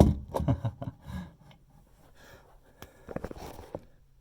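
Handling noises: a sharp click, then a run of small clicks, knocks and rubbing, and another cluster of clicks about three seconds in.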